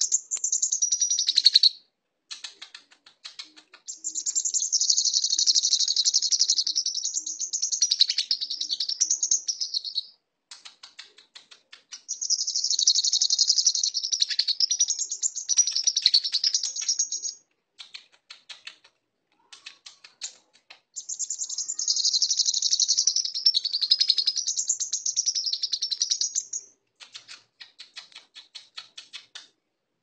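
Brown-throated sunbird (kolibri kelapa) singing a lovebird-imitation song: three long bouts of rapid, high chattering, each about five or six seconds. Between the bouts come short runs of sharp, quick chip notes.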